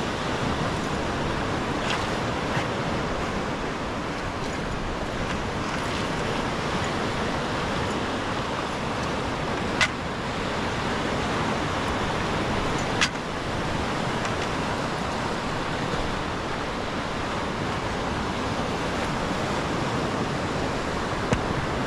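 Steady wash of lake waves with wind on the microphone. Two sharp clicks stand out, about three seconds apart, near the middle.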